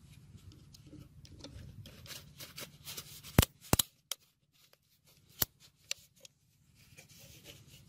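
Thin plastic water bottle and its screw cap being handled: light crinkling and rubbing, with two sharp clicks about three and a half seconds in as the cap is fitted onto the bottle, and a few smaller clicks a couple of seconds later.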